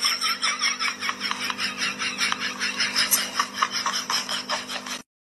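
A person laughing in quick breathy giggles, about five a second, slowly fading and then cutting off suddenly near the end, over a faint steady hum.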